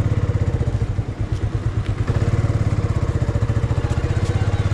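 Motorcycle engine idling with a steady, fast, even beat.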